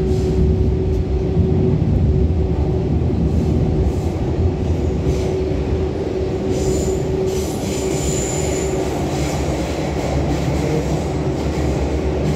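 Rotem-built MTR EMU (K-Train) running at speed, heard from inside the car: a steady low rumble of wheels on rail with a steady hum that stops about nine seconds in. A high-pitched wheel squeal rises over it for about two seconds midway.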